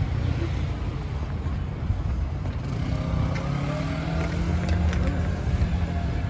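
City street traffic: vehicle engines running with a steady low rumble, and a faint steady engine tone joining in about three seconds in.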